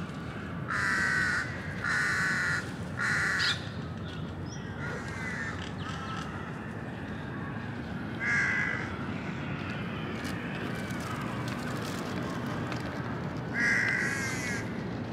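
A crow cawing: three harsh caws in quick succession, then single caws about eight and about fourteen seconds in, over a steady low background hum.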